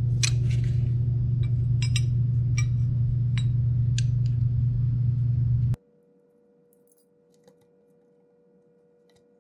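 Metal clinks of a wrench on a hydraulic reservoir drain cap, about six sharp clicks over a steady low hum. The hum cuts off abruptly about six seconds in, leaving near silence.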